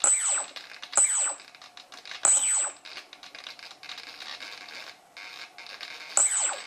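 Brushless motor stuttering on throttle as the ESC loses sync with it (a desync). It gives four short jerks, each a high whine that falls away in pitch, with a rough, crackling buzz in between.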